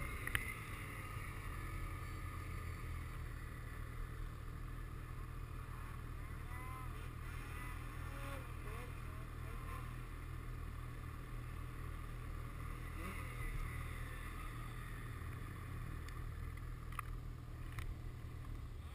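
Snowmobile engines running at low speed and idling: a steady low drone.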